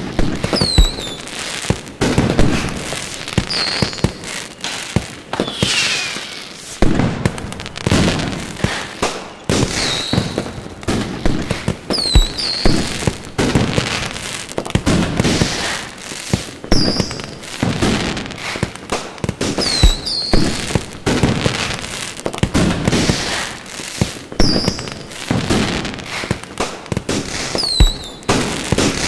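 A fireworks display: a dense, continuous barrage of bangs and crackle, with a burst every second or less. Short high whistles that fall in pitch recur every few seconds.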